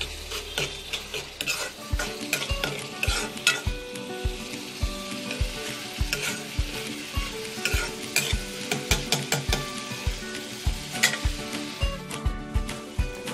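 Onion-tomato spice masala frying and sizzling in oil in a steel kadai, while a metal spoon scrapes and knocks against the pan as it is stirred. The sizzle swells in the middle, under a run of sharp clicks from the spoon.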